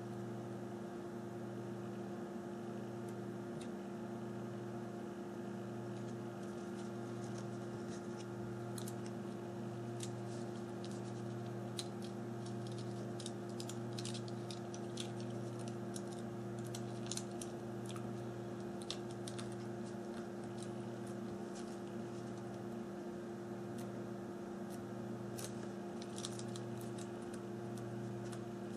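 Small, sharp clicks and taps of tiny plastic and metal phone parts being handled and fitted during reassembly, bunched mostly in the middle and again near the end, over a steady low electrical hum.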